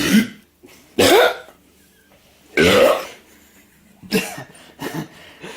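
Men burping and coughing after drinking beer: three loud, harsh bursts about a second and a half apart, then two weaker ones near the end.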